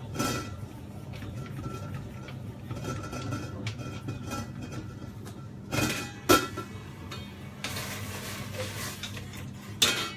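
Stainless steel pot and its lid clattering on a gas stove: scattered clicks, a sharp metal knock about six seconds in and two more near the end, with a short hiss between them. A steady low hum runs underneath.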